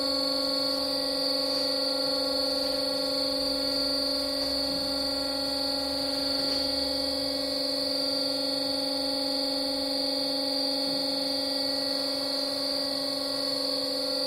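BOMAR Workline 610.450 DGH metal-cutting band saw running with a steady hum and a high whine.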